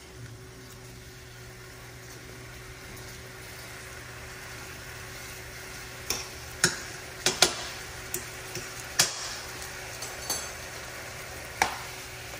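Chicken pieces sizzling in oil in a frying pan. From about halfway through, a utensil being stirred through the chicken clacks and scrapes sharply against the pan several times.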